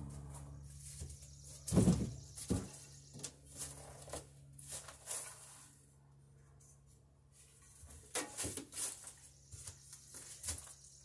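Wooden boat planking and a long thin wood strip being handled on a workbench: scattered knocks and clatters of wood, loudest in a thump about two seconds in and in a burst of knocks about eight seconds in, over a steady low hum.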